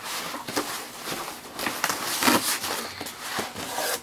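Packaging rustling and crinkling as a boxed computer power supply is taken out and unwrapped, irregular, with a few louder crinkles.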